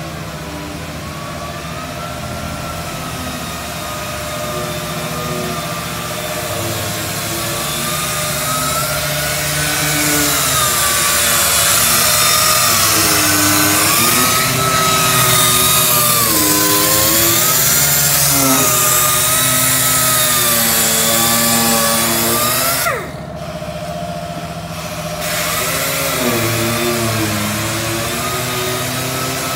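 Electric disc grinder working steel truck body panels: the motor's whine dips and recovers as the disc is pressed into the metal, over a strong grinding hiss. Just past three-quarters of the way in, it winds down with a falling whine, stops for a moment, then starts again.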